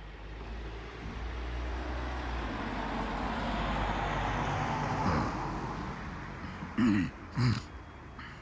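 A road vehicle passing by, its noise building for about four seconds and then fading. Near the end come two short, low vocal sounds about half a second apart.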